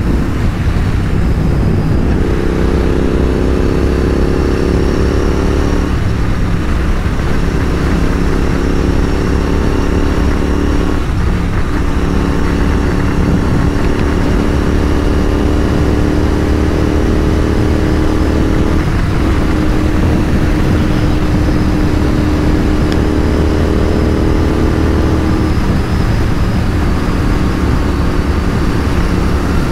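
Royal Enfield 650 parallel-twin motorcycle engines cruising at a steady motorway speed, a steady exhaust drone whose pitch dips and settles slightly a few times as the throttle changes.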